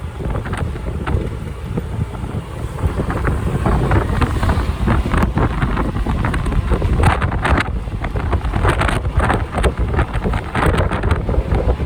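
Strong wind buffeting the microphone of a motorcycle rider on the move: a dense, loud low rumble with irregular gusty crackles throughout.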